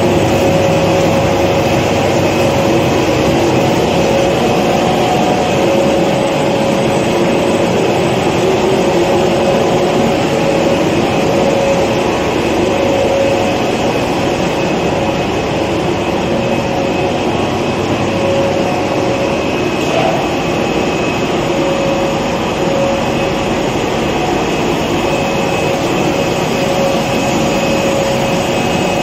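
A two-roll A4 copy-paper sheeting machine running: a steady, loud mechanical drone of rollers and drive, with a humming tone that comes and goes.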